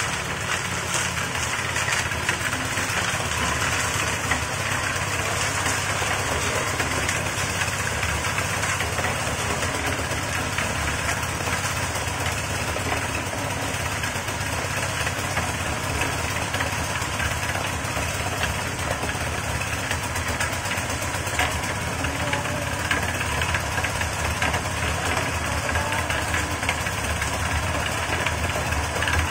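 Engine-driven portable drum concrete mixer running steadily, its small engine going at a constant speed without a break.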